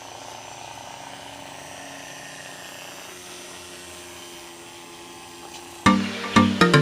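Small electric motor of a toy RC boat-car running steadily with a faint, even whir. Music with sharp beats starts abruptly near the end.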